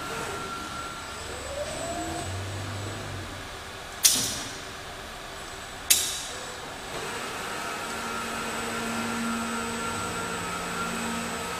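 Robotic bottle-palletising line running: a steady hum of motors and conveyors, a short whine rising and falling near the start as the robot moves, and two sharp hisses of compressed air about two seconds apart, pneumatic valves venting.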